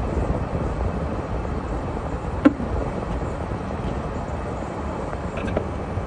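Vehicle on the move: a steady low rumble of engine and road noise, with one sharp click about two and a half seconds in.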